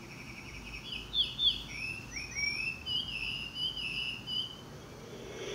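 Sunrise alarm clock's built-in speaker playing its birdsong alarm tone: a quick run of bird chirps and whistles that stops about four and a half seconds in.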